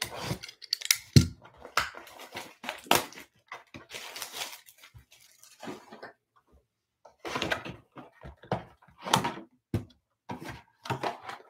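Cardboard trading-card hobby box being handled and opened, its outer box slid off the sealed inner box: irregular scrapes, taps and rustles of cardboard, with a short lull around the middle.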